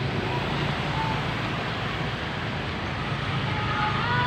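Steady road traffic with a vehicle engine running by. Near the end a bus's multi-note basuri air horn starts sounding a chord of several steady tones.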